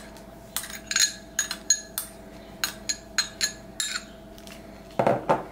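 A metal spoon clinking and tapping against a bowl while ingredients are added: about a dozen sharp, ringing taps at an uneven pace, with a louder knock near the end.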